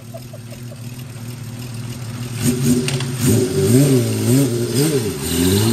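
Honda CBX 1000's air-cooled inline six-cylinder engine idling, then blipped about four times in quick succession from about three seconds in, and revving up steadily near the end.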